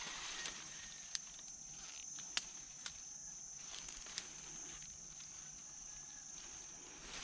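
Insects droning as one steady high note, with a few sharp clicks scattered through.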